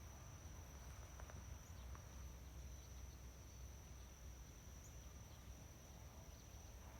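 Near silence: faint outdoor ambience with a thin, steady, high-pitched insect trill and a low rumble underneath.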